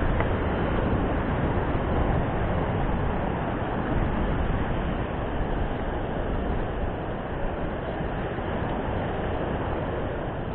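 Steady rushing noise of surf breaking on the rocks mixed with wind buffeting the camera microphone, with no distinct events.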